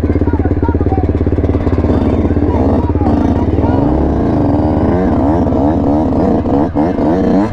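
Yamaha YZ125 two-stroke dirt bike engine running at low speed with a steady rapid pulse. In the second half it is blipped in a string of quick revs that rise and fall.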